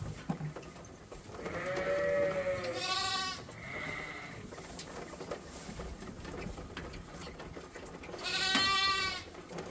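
Sheep bleating in a barn pen: a bleat about two seconds in that runs straight into a second, quavering one, and another quavering bleat near the end.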